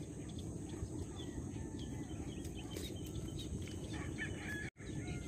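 Wind rumbling on the microphone, with scattered bird chirps and a steady high insect drone. The sound cuts out completely for a split second near the end.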